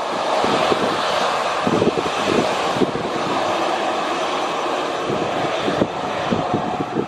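Boeing 737-800's CFM56-7B turbofan engines running steadily at taxi power, a continuous jet hiss and rumble, with wind buffeting the microphone.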